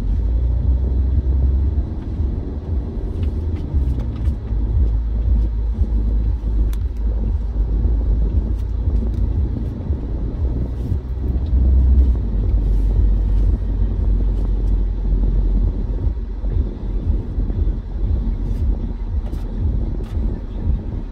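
Road noise inside a car's cabin while cruising on a highway: a steady low rumble of engine and tyres.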